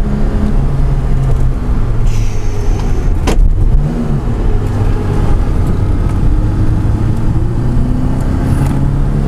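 BMW E30's engine heard from inside the cabin, running steadily under way. About three seconds in there is a sharp click, and the engine note dips and then climbs again.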